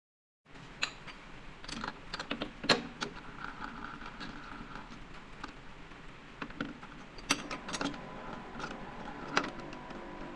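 Irregular metallic clicks and knocks of tools and parts being handled at a metal lathe, with a steady machine hum setting in near the end.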